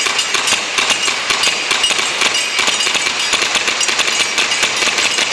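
Gas blowback airsoft pistols firing fast, a dense run of sharp shots mixed with BBs clanging and pinging off steel targets.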